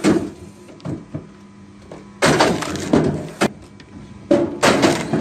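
Wood cracking and breaking as a large saw machine cuts into a big oak trunk: two loud crunching bursts about two and four seconds in, over a faint steady machine hum.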